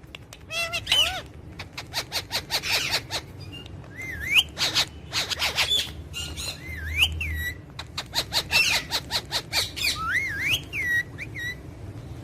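Parrots calling: runs of rapid, harsh, clicking chatter mixed with short whistled notes that swoop up and down, repeated over and over.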